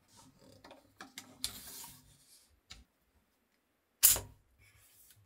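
Light plastic clicks and rattles as a 3D-printed PLA catapult is handled. About four seconds in it fires: its leaf springs fling the throwing arm up, and the arm hits its stop with one loud, sharp clack.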